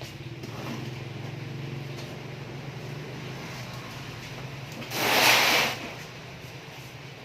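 A steady low hum, with a loud burst of hiss lasting under a second about five seconds in.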